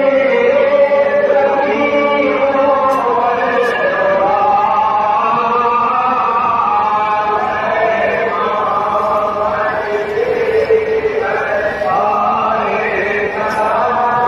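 Voices of men chanting a Muharram salaam (marsiya) to Imam Hussain together, in long held, wavering melodic lines that run on without a break.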